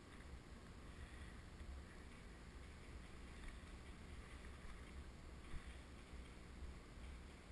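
Near silence with a low steady rumble on the microphone, and one faint knock about five and a half seconds in.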